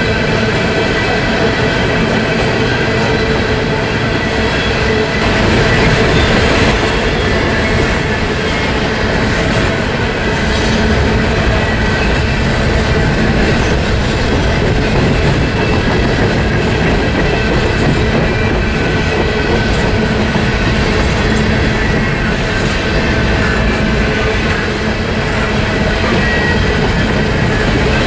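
Freight train of open-top coal cars rolling steadily past, a loud continuous rumble of steel wheels on rail with clickety-clack from the rail joints. A steady high wheel squeal rings over it.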